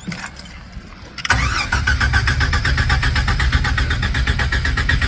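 1994 Jeep Wrangler YJ engine being cranked by its starter, starting suddenly about a second in: a steady, even, rhythmic churn of about six beats a second that does not catch and run. This is the stall-and-no-start fault the owner cannot trace.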